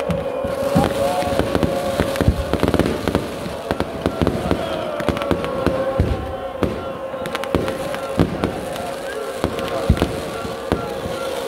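Fireworks going off overhead in a string of sharp bangs and crackles, with a steady held tone running underneath.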